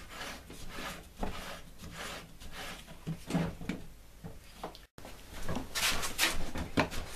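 Reassembled plastic belt-and-pulley drive of an electric lawn mower turned by hand, with light rubbing and scattered clicks as the drive turns freely again. About five seconds in, after a short break, louder knocks and clatter of the mower and tools being handled on a wooden bench.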